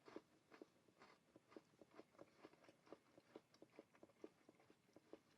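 Faint crunching of a KitKat's crisp wafer being chewed in the mouth, about three crunches a second.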